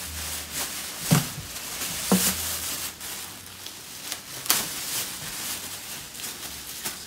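Thin plastic packaging bag around IKEA chair parts rustling and crinkling in irregular bursts as it is handled and pulled open, with two dull bumps about one and two seconds in.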